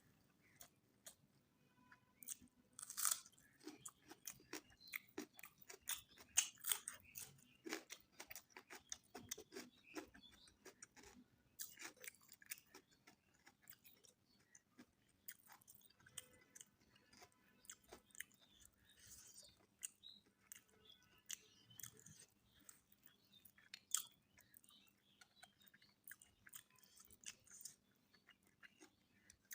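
A person chewing mutton biryani close to the microphone, with many irregular sharp crunches between softer, wetter chewing.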